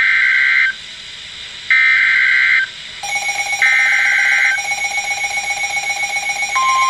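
Emergency Alert System SAME header on NOAA Weather Radio: three warbling digital data bursts, each about a second long, sent one after another for a severe thunderstorm warning. From about three seconds in, a steady, rapidly pulsing alarm tone sounds along with them. Near the end the steady 1050 Hz weather radio warning alarm tone starts.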